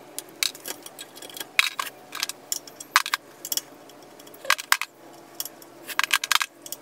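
Steel hex-bit sockets and a ratchet clinking against a car's rear brake caliper bolts as sizes are tried for the fit. The clinks are sharp, metallic and irregular, coming in several quick clusters.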